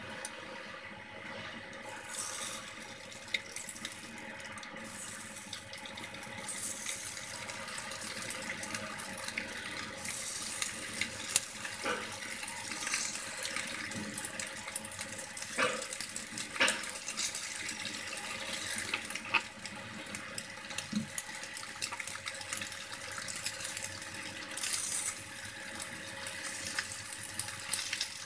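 Seasoned chicken wings sizzling as they fry in hot oil in a nonstick pan: a steady hiss that gets louder as more pieces go in, with scattered crackles and pops.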